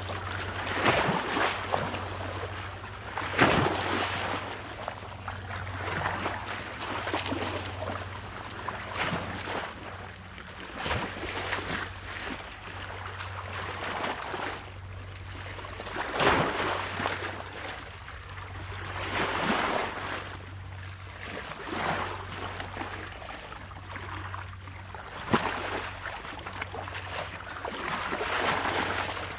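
Waves splashing against rocks: repeated surges of splashing water every two to three seconds, a few of them sharper and louder slaps, over a steady low rumble.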